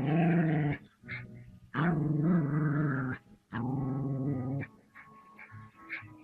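Dog growling at a hooded cobra in three long, drawn-out growls of about a second each, with short pauses between them.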